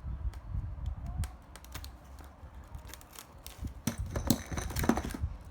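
Irregular small clicks and rattles of parts and plastic packaging being handled, growing busier about four seconds in, over a low background rumble.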